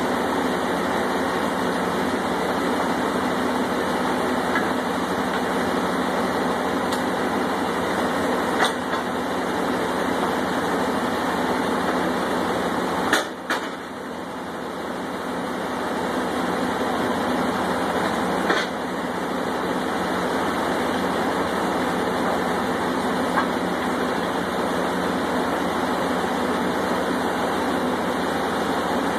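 Land drilling rig machinery and engines running with a steady drone, broken by a few sharp metallic clanks. The loudest clank comes about 13 seconds in, after which the drone dips briefly and builds back up over a few seconds.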